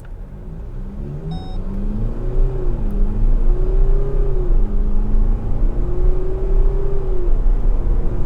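MG Gloster's twin-turbo diesel engine pulling hard under full throttle, its note climbing and then dropping back as the automatic gearbox upshifts, about twice.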